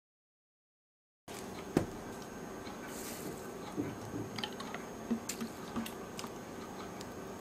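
Dead silence for about the first second, then quiet room tone with a sharp tap and a scattered run of small clicks and taps from a spoon and glass mixing bowl being handled.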